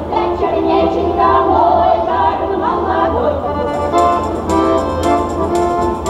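Women's folk choir singing a Russian folk song with accordion accompaniment. A little over halfway through the voices drop out and the accordion plays an instrumental interlude, with a tambourine struck on the beat about twice a second.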